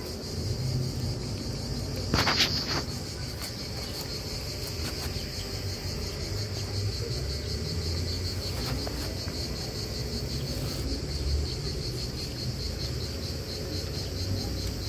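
Insects chirring in a steady, finely pulsing high drone, over a low rumble. A brief loud knock about two seconds in.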